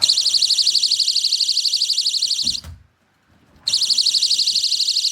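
Battery-powered magnetic door/window alarm sensor sounding its alarm: a loud, shrill, fast-pulsing electronic siren tone. It sounds for about two and a half seconds, stops with a low knock of handling, and starts again about a second later.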